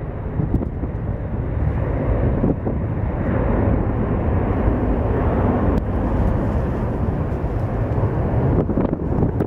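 Boeing 767-300ER freighter's two jet engines running at high power on the takeoff roll, heard from a distance as a steady deep rumble.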